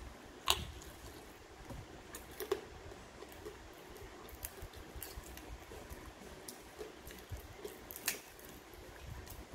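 Close-up eating sounds of someone eating fried tilapia and rice by hand: chewing and lip smacks with small scattered clicks, a sharper click about half a second in and another near the end.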